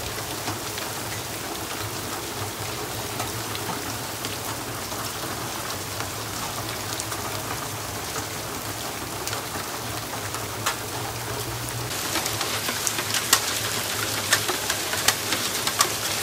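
Steady rain falling on wet ground, with scattered sharp ticks of drops striking. About twelve seconds in it gets louder, and the ticks come more often.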